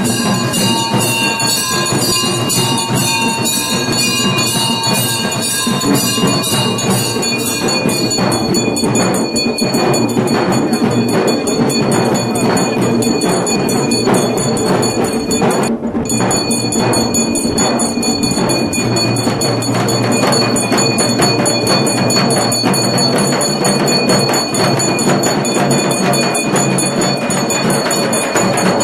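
Temple procession music: bells ringing over a fast, dense run of percussion strokes, the percussion growing more prominent about eight seconds in.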